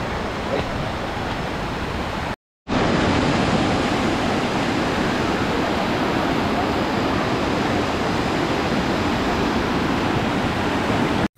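Steady rush of a stream, swollen with heavy rain, pouring over rocks in small cascades. It cuts out briefly about two and a half seconds in and comes back slightly louder.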